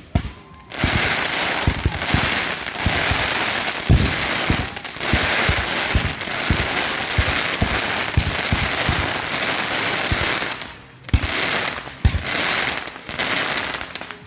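Close-range fireworks going off: a dense, continuous crackling shot through with many sharp thumps. It drops out briefly near the end, then comes a couple of sharp bangs and a last short burst of crackle.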